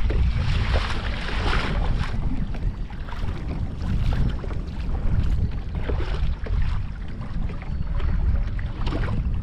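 Wind buffeting the microphone, a steady low rumble, over water splashing and swishing along the hull of a moving kayak on choppy saltwater.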